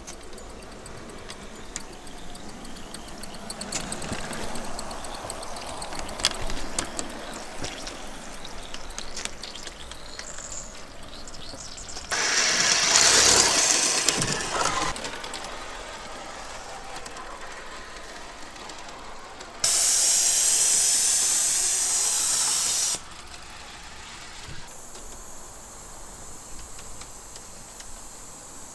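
Bowande Gauge 1 live steam GWR 14xx tank locomotive hissing steam. A loud burst of steam comes about twelve seconds in and fades over a couple of seconds, then a loud steady hiss starts suddenly about twenty seconds in and cuts off abruptly some three seconds later.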